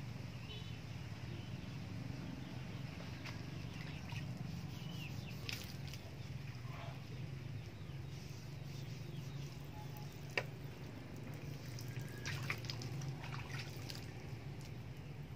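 Water dripping and trickling as a billhook blade is wetted and handled over a wooden chopping block, with small scattered knocks and one sharp tap about ten seconds in.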